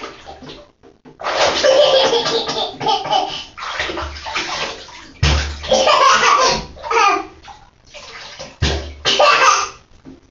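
Air bubbling out of a plastic toy teapot held under bathwater, making fart-like gurgles in three long bursts with short pauses between.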